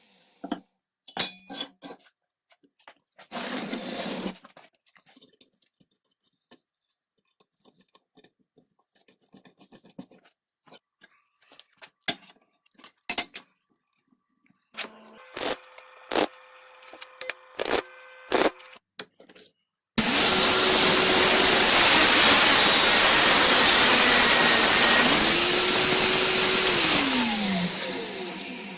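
Scattered knocks and clicks of parts being handled, then an angle grinder runs loud for about eight seconds, cutting or grinding. Its whine dips briefly under load, recovers, then falls away as the disc spins down.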